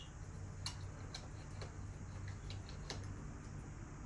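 A few scattered light clicks and ticks from tools and bike parts being handled, irregularly spaced, over a low steady hum.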